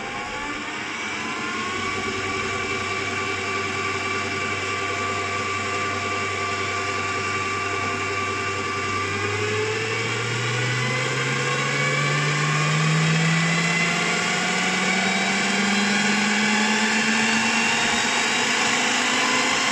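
Einhell BT-TB 13 E Digital bench drill press running without load after being switched on. It comes up at its low default speed of about 680 rpm instead of the 2500 rpm it was stopped at. About halfway through the speed is turned up, and the motor's pitch rises steadily over several seconds to a higher, steady running note.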